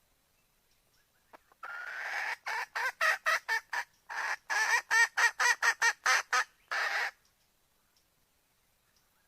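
Female red junglefowl (jungle hen) calling to a male: a drawn-out note, then two runs of quick clucks, about five a second, with a short break between them, closing on another longer note.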